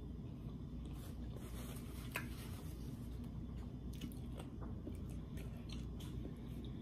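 Faint chewing and wet mouth sounds of a person eating, with a few soft clicks, over a steady low room hum.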